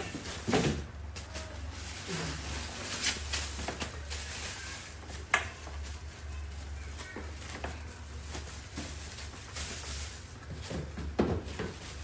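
Plastic grocery bags crinkling and a woven plastic basket rustling as a baby monkey climbs about inside it, with scattered light clicks and knocks over a steady low hum.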